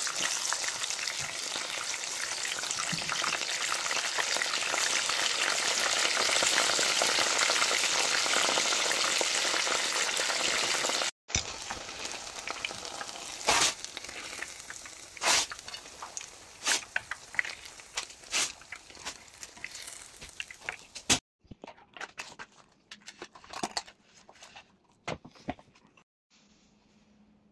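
Breaded food deep-frying in a pan of hot oil: a dense, steady sizzle that grows louder over the first several seconds and cuts off abruptly about eleven seconds in. After that come scattered sharp clicks and taps, fainter toward the end.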